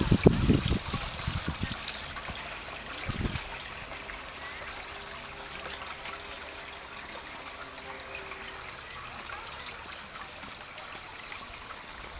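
Steady trickling of water in a garden koi pond, with a few low rumbles in the first second and another about three seconds in.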